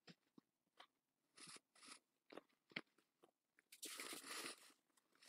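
Faint close-miked chewing and crunching on a thick oatmeal peanut butter cookie: scattered short crunches and mouth clicks. A longer rustle about four seconds in, as crumbs are brushed off the hands.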